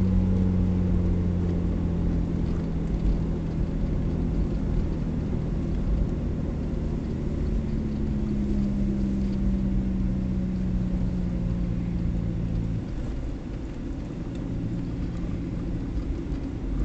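A car's engine and tyres running steadily, heard inside the cabin while driving at moderate road speed: a low, even hum whose pitch shifts slowly. It eases off about two-thirds of the way through as the car slows down.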